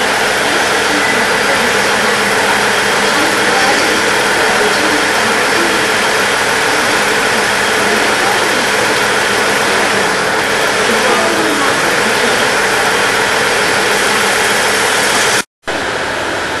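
KiHa 110 series diesel railcar idling steadily at the platform, a loud even engine drone with hiss. The sound cuts out for a moment near the end, then resumes slightly quieter.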